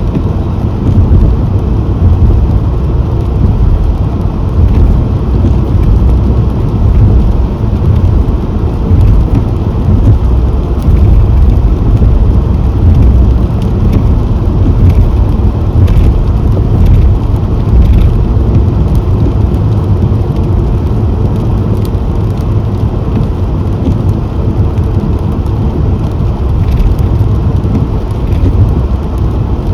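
A car driving on wet roads in rain: a loud, steady low rumble of road and engine noise, with faint scattered ticks of raindrops.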